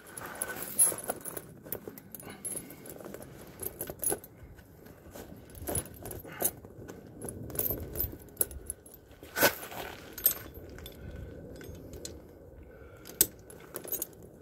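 Steel tire chains clinking and rattling as the links are pulled and worked by hand on a garden tractor tire to take up slack, in irregular sharp clinks, the loudest about nine and a half seconds in.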